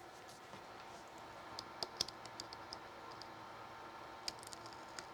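Heat-shrink plastic wrap being picked at and peeled off: a scatter of faint, sharp crackles and ticks in two clusters, one from about a second and a half in and another after about four seconds.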